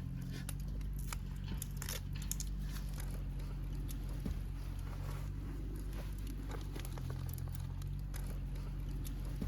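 Wood fire in a Swedish torch log crackling, with scattered sharp pops over a steady low rumble.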